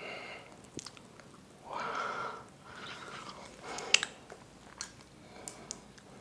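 Fork and knife working through a giant meatball and its thick chili sauce: soft squishing, with a few sharp clicks of metal cutlery, the strongest about four seconds in.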